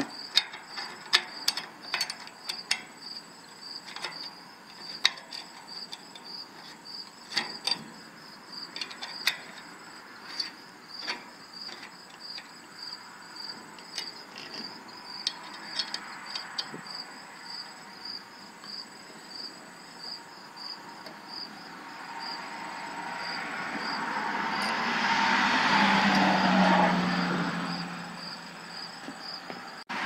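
Small metal clicks and taps as a bracket ring is fitted onto a finder's rail and its screws are turned with a hex key. Under them runs a steady high chirp about twice a second. Near the end a broad rushing sound swells and fades over several seconds.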